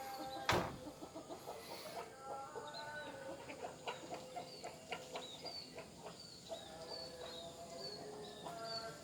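Chickens clucking in short pitched calls, with a small bird's high chirp repeating about twice a second in the second half. A single loud knock sounds about half a second in.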